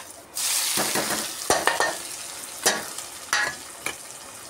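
Sliced onions going into hot oil in a kadai: a sudden loud sizzle about half a second in that slowly eases off. A spatula scrapes and knocks against the pan several times as they are stirred.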